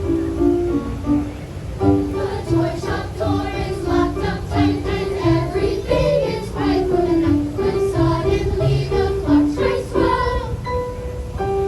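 Children's choir singing with instrumental accompaniment; a plain melody plays alone at first and the voices come in about two seconds in.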